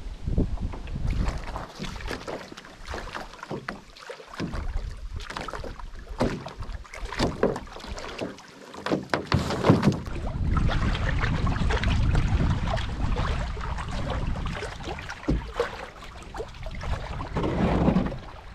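Knocks, clatters and scrapes of gear and a paddle against a wooden canoe's hull as it is slid into the water and loaded. Wind buffets the microphone in low rumbling gusts, strongest about halfway through and again near the end.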